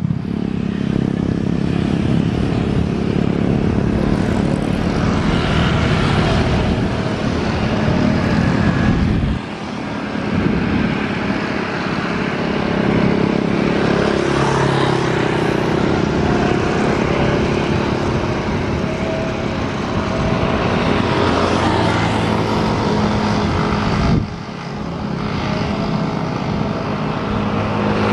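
Jet airliner engines running at low power as the aircraft taxis across the airfield: a steady loud rush of noise with a low hum under it. The sound dips briefly about nine and twenty-four seconds in.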